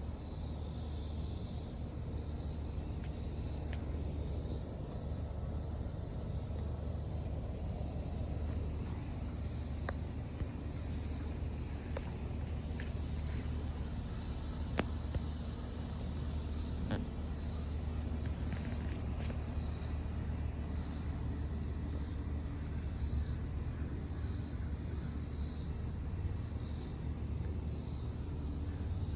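Insects chirping in high-pitched pulses about once a second, over a low steady rumble, with a few faint clicks.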